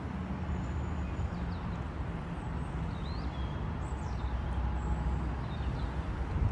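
City street ambience: a steady low rumble of traffic, with a few faint, brief bird chirps over it.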